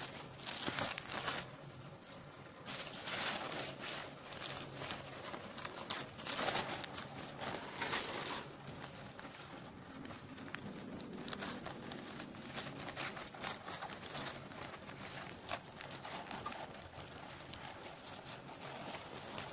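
Thin plastic carry bag rustling and crinkling in irregular bursts as it is handled, with a few sharp clicks later on.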